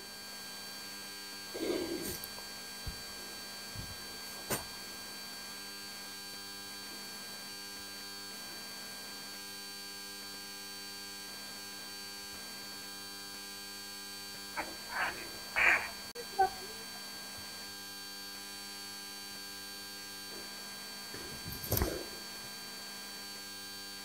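A steady electrical hum made of several fixed tones, with a few brief faint sounds rising above it: one about 2 seconds in, a cluster around 15–16 seconds, and another near 22 seconds.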